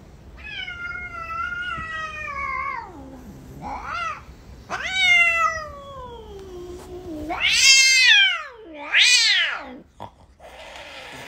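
Tabby cat meowing five times: the first and third calls long and drawn out, sliding down in pitch at the end, the second short, and the last two the loudest.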